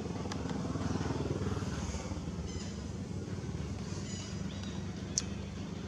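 A steady low engine rumble, like a motorcycle running, with one short sharp click about five seconds in.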